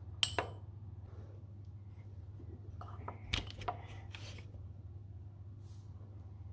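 Light clinks and knocks of metal cookie cutters and kitchenware being handled on a countertop: a ringing clink and a second click near the start, then a small cluster of taps and a duller knock about halfway through, over a steady low hum.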